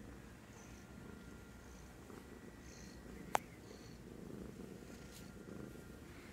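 Black cat purring steadily, close up, as it is stroked. A single sharp click about three seconds in.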